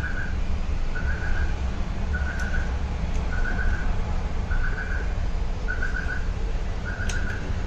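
A short warbling chirp repeats about once a second over a steady low hum, with a few light clicks.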